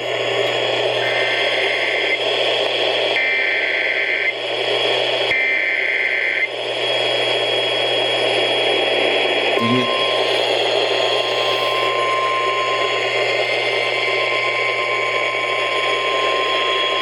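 Weather radio emergency alert over static hiss and hum. Three one-second bursts of SAME data-header tones sound about a second apart, starting about a second in. A little under ten seconds in, the steady 1050 Hz NOAA Weather Radio warning alarm tone starts with a click and holds, the signal that a warning broadcast is about to follow.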